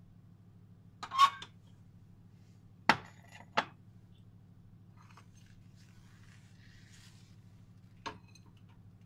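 Kitchenware clinking and knocking as a cup of milk is poured into a stand mixer's steel bowl: a louder clink about a second in, two sharp knocks near three seconds and one more near the end, over a faint steady hum.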